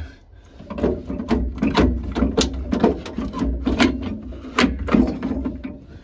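Metal fan assembly of a Worcester Greenstar Junior boiler being worked into position on the burner, giving an irregular run of clicks, knocks and scrapes.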